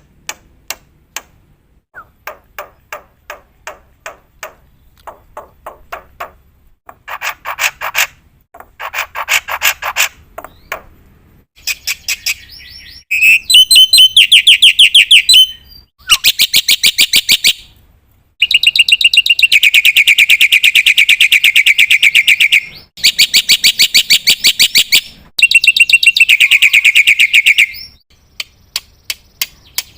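Black-winged starling (jalak putih) singing. Spaced sharp clicking notes come first, then loud, very rapid trills in long runs with short breaks from about halfway, and scattered notes again near the end.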